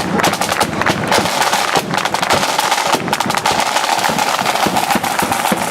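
Marching flute band's drum corps playing: rapid snare drum rolls and strokes with bass drum beats, and a steadier tone in the second half.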